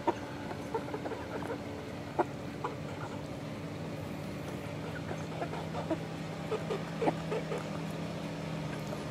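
A flock of 11-week-old chickens making soft, short clucks and calls while feeding, with a few sharp clicks among them. A steady low hum runs underneath and gets louder about three and a half seconds in.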